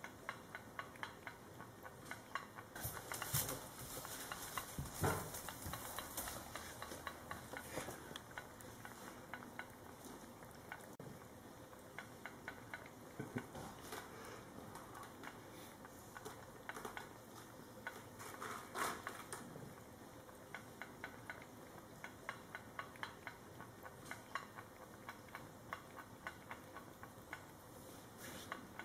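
A mother cat and her kitten lapping food from a small saucer with a spoon in it: a quick, steady run of wet licking clicks, several a second, with a few louder knocks of the saucer and spoon in the first few seconds and again past the middle.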